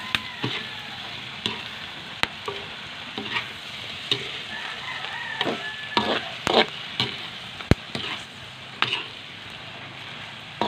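Buttered shrimp frying in a black wok with a steady sizzle, stirred with a spatula that scrapes and clicks against the pan again and again.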